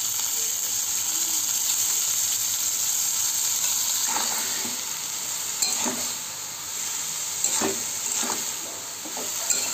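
Hot oil sizzling in a kadai of frying potatoes as steamed, shredded banana flower is tipped in. From about halfway, a metal spatula stirs through it, with a few short scrapes and knocks against the pan.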